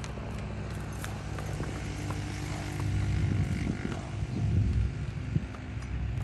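Hoofbeats of an Arabian horse trotting over dry, soft field ground, heard as irregular low thuds that grow louder from about three seconds in, over a steady low rumble.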